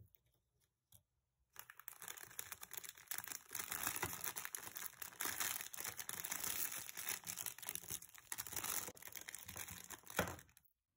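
Clear plastic packaging bag crinkling and rustling as hands handle and open it, starting about a second and a half in and stopping just before the end.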